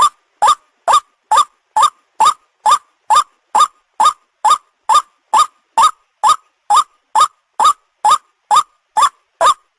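White-breasted waterhen (ruak-ruak) call played as a hunting lure: a short rising note repeated evenly about twice a second.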